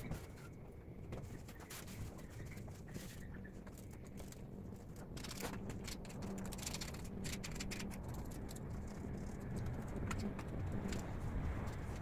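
Scattered light clicks and rattles of hands handling parts on a small engine, over a faint steady hum.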